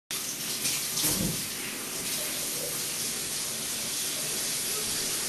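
Steady rushing hiss, with a soft low thump about a second in.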